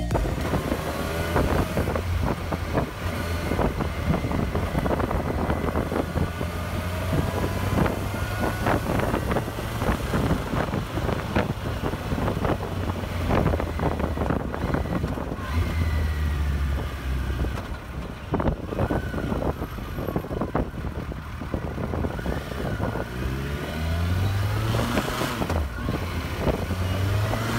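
Kawasaki Versys 1000 inline-four motorcycle engine running under way, its note rising and falling with the throttle, under heavy wind buffeting on the microphone.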